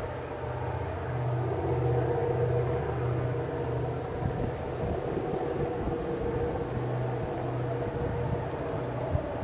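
Diesel locomotives hauling a loaded coal train: a steady low engine throb that swells and eases, with a higher drone above it.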